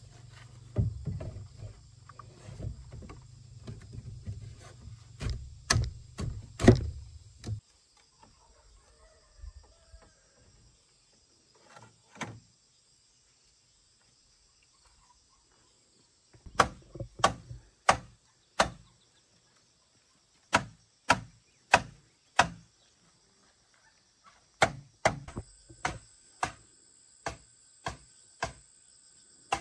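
Bamboo poles being handled and knocked together, clattering over a low rumble for the first several seconds. After a quiet spell, sharp knocks on bamboo come in runs of about two a second, as from pounding or hammering poles while building the coop frame.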